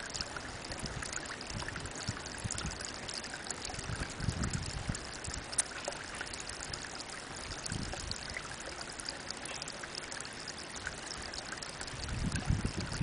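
Spring water trickling from a thin spout into a pond: a steady light splashing patter. A low rumble comes about four seconds in and again near the end.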